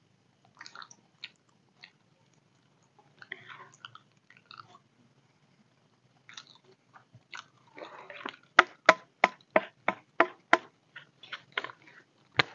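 Eating sounds: soft, scattered clicks of a spoon on a plastic plate and chewing. Then, about eight seconds in, a run of about a dozen sharp, loud smacks at roughly three a second, lasting some three seconds.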